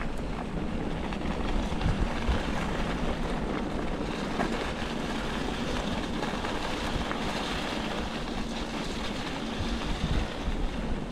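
Mountain bike rolling over a dirt trail, tyres crunching over dirt and dry leaves, with steady wind noise on the microphone. A few louder jolts come about two seconds in and again near the end.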